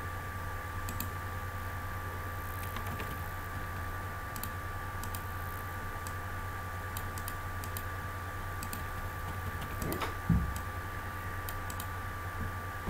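Scattered computer keyboard keystrokes and mouse clicks over a steady electrical hum, with one louder dull thump about ten seconds in.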